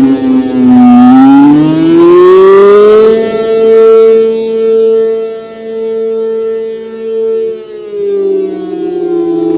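ACA Allertor 125 rotating electromechanical siren with an 8/12-port chopper sounding the attack signal, a two-tone wail. The pitch dips, rises, holds high for a few seconds, then begins to fall near the end. Its loudness swells and fades as the rotating horn sweeps past.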